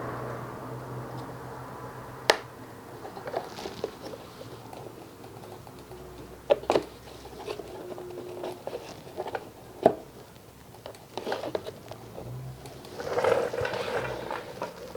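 Hands working small plastic and metal parts on a car bumper cover: speed clips being pulled off and fog light fittings handled, with scattered sharp clicks and taps, a loud snap about two seconds in, and a spell of rustling and scraping near the end.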